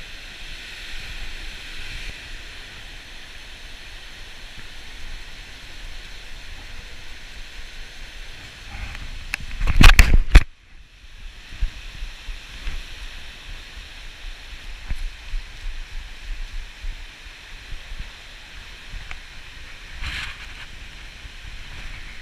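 Water pouring down a dam spillway and rushing into the pool below, a steady rush of falling water. About halfway through, a brief loud burst of noise drowns it out for about a second.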